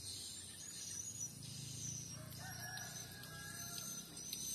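A drawn-out bird call a little over a second long, beginning about two seconds in, over a steady high chirring of insects.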